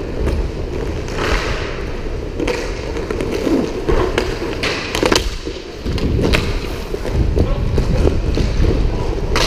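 Inline skate wheels rolling and scraping on a roller hockey rink floor, heard from a helmet microphone as a steady low rumble, with sharp clacks of hockey sticks and puck scattered throughout, the loudest about five seconds in and again near the end.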